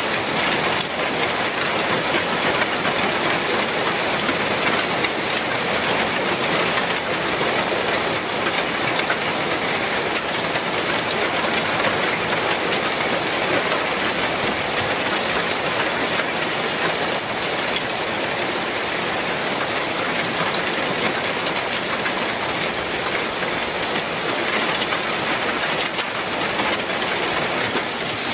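Heavy rain pouring onto a clay-tile roof, a dense, steady hiss and patter without letup.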